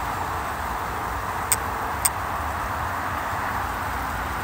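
Steady noise of road traffic, with two short sharp clicks about half a second apart, around a second and a half in.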